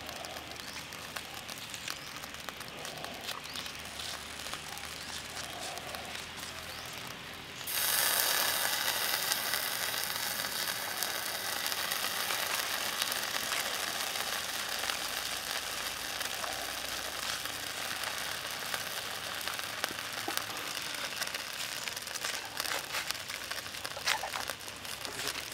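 Chicken grilling on a bamboo skewer over charcoal embers: faint crackling, then about a third of the way in a sudden, louder sizzling hiss with fine crackles that keeps on, as sauce is basted on and drips onto the hot coals.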